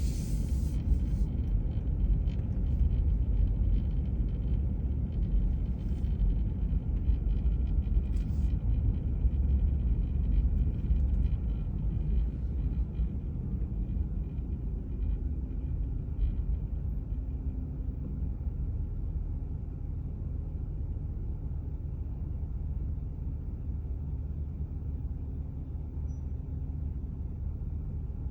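Steady low engine rumble with a faint high whine over it and a few clicks early on, easing off slightly about halfway through.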